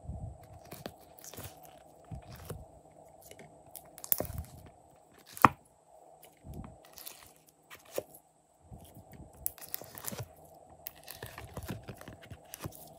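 Sticky, crackling squishes and peeling sounds as purple heart-shaped pieces are pulled out of a silicone mould and squeezed into slime. The sounds come in irregular bursts with scattered taps, one sharp click about five and a half seconds in, over a faint steady hum.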